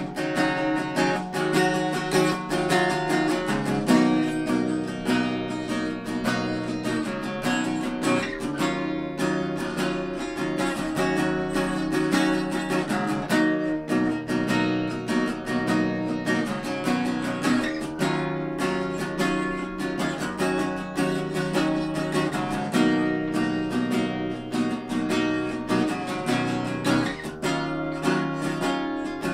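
Acoustic guitar strummed steadily through an instrumental passage, with the chords changing every few seconds.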